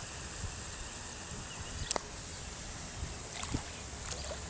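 Storm runoff water flowing across the street toward a drain, a steady rushing with a low rumble beneath it. A single sharp click comes about two seconds in.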